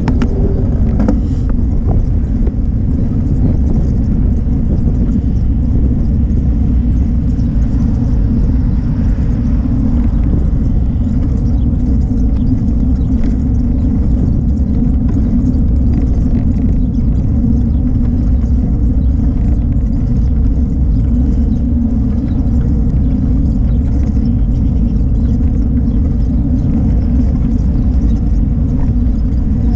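Steady low rumble of wind on a bicycle-mounted camera's microphone and tyres rolling over a rough paved bike path while riding.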